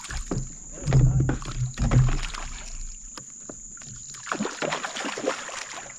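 A hooked chain pickerel splashing and thrashing at the surface beside a kayak as it is brought in and scooped into a landing net. Two loud thumps come about one and two seconds in.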